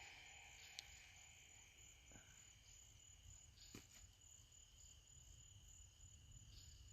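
Faint, steady high-pitched chorus of night insects such as crickets, near silence otherwise, with two faint clicks about a second and about four seconds in.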